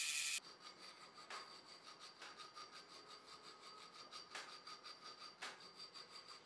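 A small hand file worked back and forth in a drilled hole in a metal piece clamped in a vise, making faint, quick, even rasping strokes with a few harder ones standing out. The drill press running at the start cuts off within the first half second.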